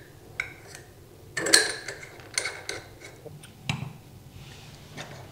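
Small metal clinks and ticks as a chrome compression angle stop valve is fitted onto a copper pipe stub and its compression nut is gripped and tightened with adjustable wrenches, with a cluster of clicks about a second and a half in and a duller knock a little later.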